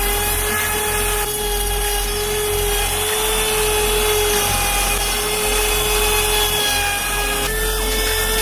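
CNC router spindle running at high speed with a steady whine while a straight bit mills plywood; the pitch shifts slightly a few times as the cut changes.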